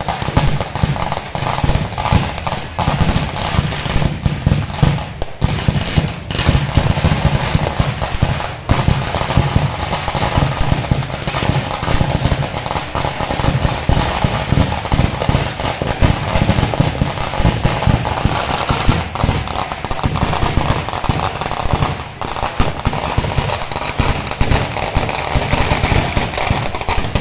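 Fireworks and firecrackers going off in a dense, continuous rapid crackle of bangs, with only brief lulls.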